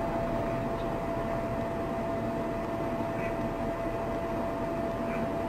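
Steady low rumble of a truck's engine and road noise as picked up by its dashcam in the cab, with a thin steady tone held over it.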